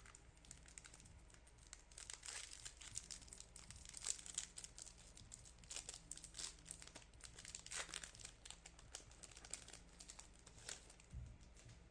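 Faint crinkling and tearing of a foil trading-card pack wrapper being opened by hand, a continuous patter of small crackles.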